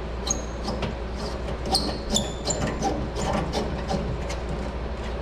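Light clicks, taps and a few short metallic clinks with a brief high ring, from range hood parts being handled and fitted, over a steady low hum.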